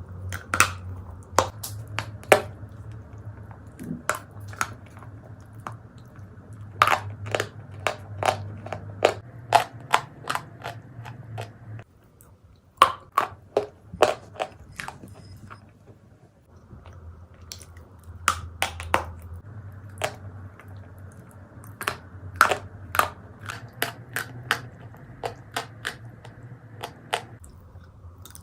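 Turkestan edible clay being bitten and chewed close to the microphone: a run of sharp, dry crunches, several a second in clusters, with short pauses between bites.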